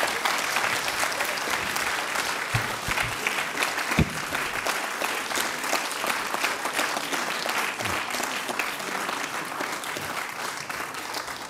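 Audience applauding steadily, with a few low thumps, thinning slightly toward the end.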